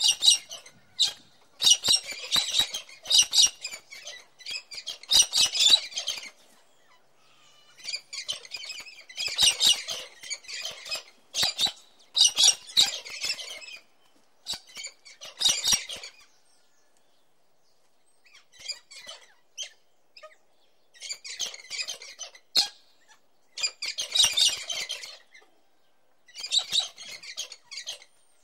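Rainbow lorikeet calling in repeated bouts of rapid, harsh, screechy chattering, each bout lasting a second or two, with short pauses between.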